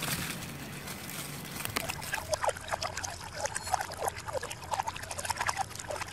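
A steady outdoor hiss for about two seconds, then a cut to small water sounds in a metal cup: a run of quick drips, plips and trickles stirred by a spoon.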